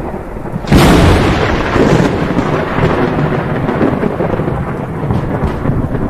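Thunderstorm sound effect: a sudden loud thunderclap about a second in, then thunder rumbling on over steady rain.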